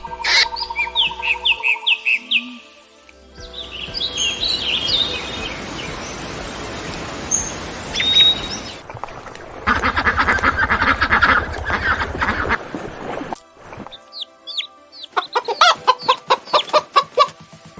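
Chicken and bird calls in a few short clips cut one after another: high chirping, a stretch of rapid rhythmic clucking, and repeated short falling chirps near the end.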